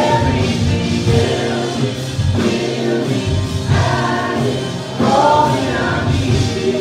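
Church praise team singing a gospel worship song, male and female voices over acoustic guitar.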